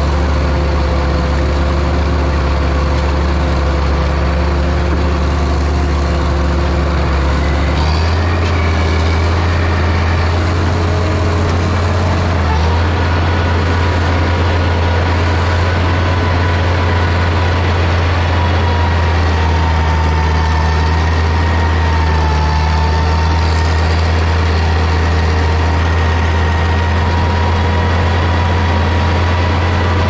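Heavy earthmoving machine's diesel engine running steadily and loud. About eight seconds in, the engine note steps up slightly and a thin high whine comes in, wavering in pitch.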